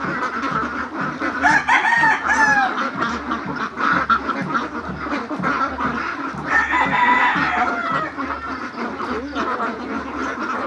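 Large flock of domestic ducks quacking and chattering continuously, with a few louder drawn-out calls about two seconds in and a longer one around seven seconds in.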